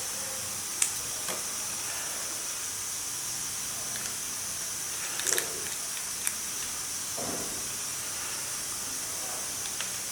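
Steady high hiss, with a few sharp clicks and cracks as a king crab's shell and parts are pulled apart by hand, loudest about a second in and around five seconds in.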